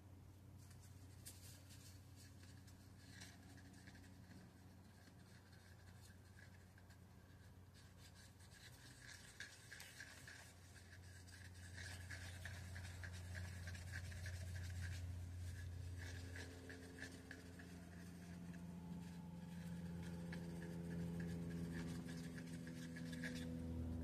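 Wooden stir stick scraping and scratching against the sides of a mixing cup as pigmented epoxy resin is stirred, a fast run of fine strokes that gets busier after the first few seconds, over a low steady hum.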